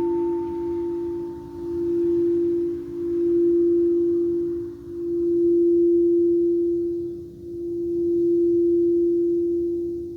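Singing bowl sounding one sustained, steady tone that swells and dips about every two and a half seconds. A fainter higher overtone dies away in the first two seconds or so.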